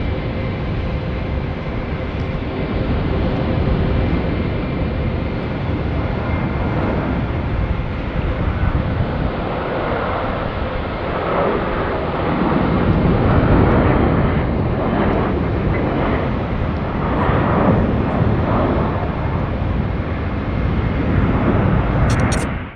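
Jet airliner engines running loud and close, with faint steady whine tones in the first several seconds that fade out, then a heavier rumble that swells and surges from about halfway through.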